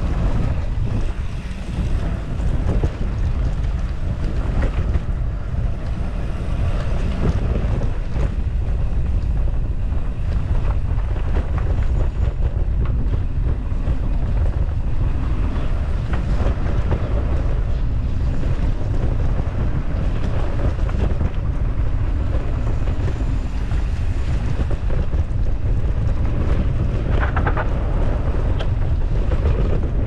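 Heavy wind buffeting on an action-camera microphone, mixed with the rumble and rattle of a mountain bike's knobby tyres rolling fast over a dirt downhill trail.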